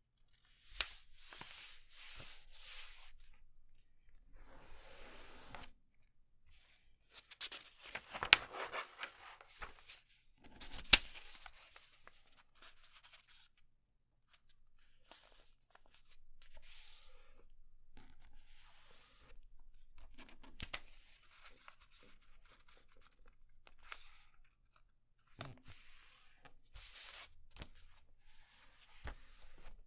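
A sheet of paper being folded and creased by hand, in irregular bursts of rustling and crinkling with short pauses. There are two sharp, louder crackles about 8 and 11 seconds in.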